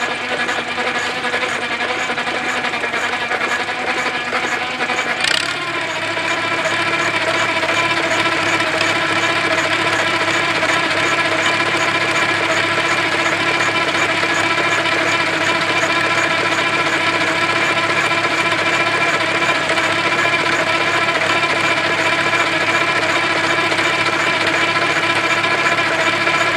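Farmall tractor engine running steadily, driving a V-belt that spins a 1.5 hp Sattley hit-and-miss engine over to belt-start it, with a fast mechanical clatter. About five seconds in there is a sharp click, and the running pitch steps up slightly and gets a little louder.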